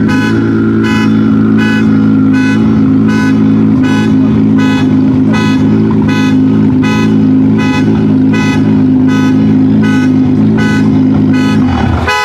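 Nissan GT-R R35's twin-turbo V6 idling steadily, then cut off abruptly near the end. An electronic beep repeats about twice a second over it.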